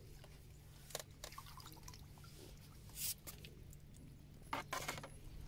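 Water splashing and dripping as a mirror carp is brought into a landing net and the net is lifted from the lake. There are short sharp splashes about a second in, around three seconds in, and a cluster near the end.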